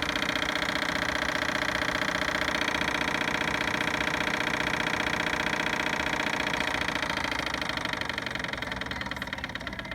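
Radio Shack Desperado RC truck's small electric drive motor and gears running with a steady whine, easing off slightly near the end.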